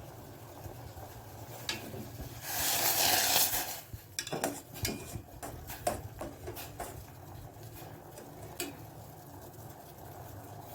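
A metal spoon stirring and clinking in a saucepan of boiling ginger tea. About two and a half seconds in there is a loud hissing rush lasting just over a second, followed by a run of scattered clinks and taps against the pan.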